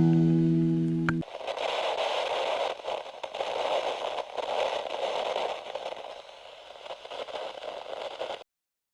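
The last chord of a guitar rock track rings and fades, then cuts off about a second in. An uneven rushing hiss follows and stops shortly before the end.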